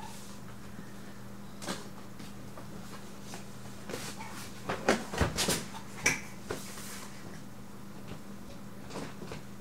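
Cardboard motherboard packaging being handled: scattered scrapes, taps and knocks as the boxes are opened and moved, busiest and loudest around the middle, over a steady low hum.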